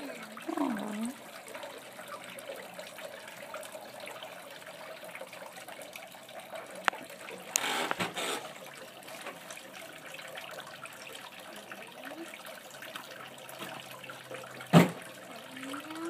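Water trickling steadily down a small artificial-rock patio fountain, with a short burst of noise about halfway through and a sharp knock near the end.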